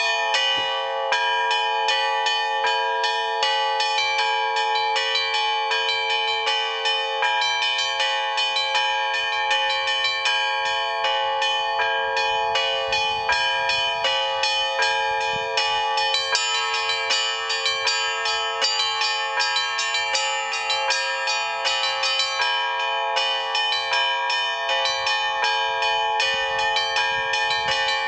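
Russian Orthodox trezvon: a set of church bells rung together by one bell ringer in a rapid, steady pattern, many bells ringing over one another without a break. It is the full peal rung at the close of the evening service.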